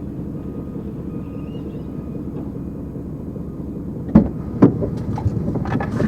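Vehicle engine running steadily with a low rumble, then two sharp knocks about four seconds in, followed by a few lighter clicks.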